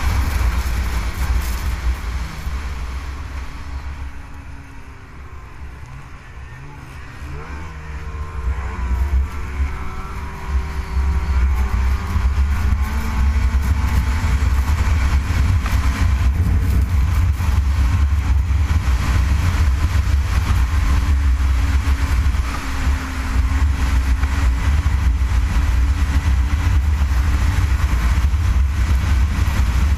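Ski-Doo snowmobile engine running at speed on a lake crossing. It eases off about a few seconds in, then accelerates back up with a rising pitch and holds a loud, steady high-speed run.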